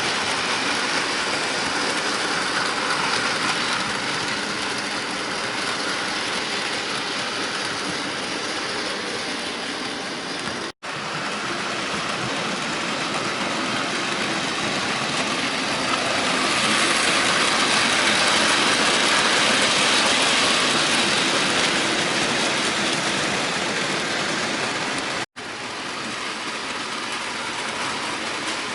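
Bachmann model train running on layout track: a steady whirring, rolling hiss of the motor and wheels on the rails. The sound cuts out abruptly twice, about 11 and 25 seconds in.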